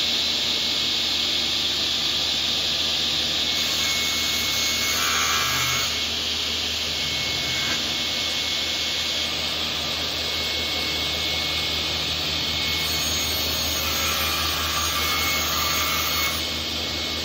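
SCM L'Invincibile SI15F table saw running steadily, its circular blade cutting chipboard panels fed along the rip fence.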